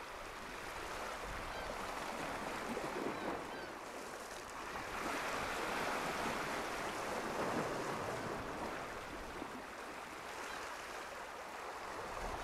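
Sea waves washing against a rocky shore, a steady rushing that swells and eases every few seconds.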